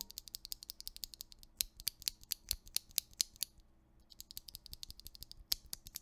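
A single loose QK1 mechanical keyboard switch pressed and released by hand over and over, giving rapid sharp plastic clicks several times a second, with a brief pause about halfway through.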